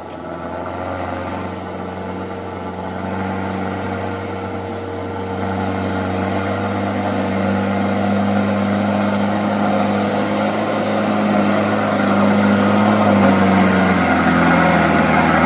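Loaded light truck's diesel engine working hard under load, hauling up a steep, slippery grade. The engine note holds fairly steady while it grows steadily louder as the truck nears, with a brief drop in pitch near the end.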